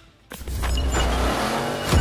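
A car's engine and tyre noise as it drives, setting in about a third of a second in, with a sharp knock near the end.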